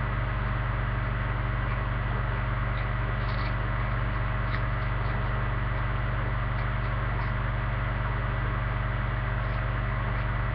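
A steady low hum with hiss and a few steady tones, unchanging throughout, with a few faint short clicks on top that fit someone chewing a banana with its peel.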